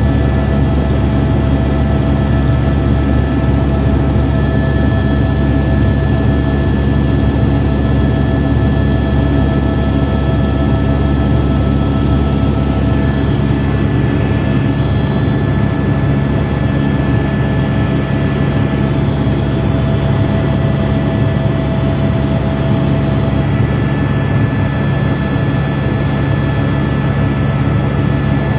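Helicopter in flight heard from inside the cabin: a loud, steady drone of engine and rotor with several steady whining tones above it.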